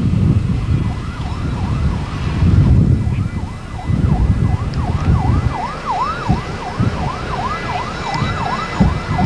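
Emergency vehicle siren in yelp mode: a quick rising-and-falling wail about three times a second, coming in about a second in. Wind rumbles on the microphone underneath, easing about halfway through.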